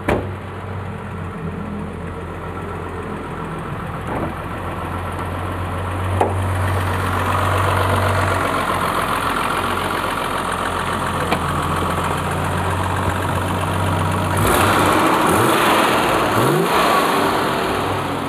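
Mercedes-Benz W123 280's carbureted straight-six idling steadily, heard close up with the bonnet open. About fifteen seconds in, a louder, noisier stretch of a couple of seconds rises over the idle.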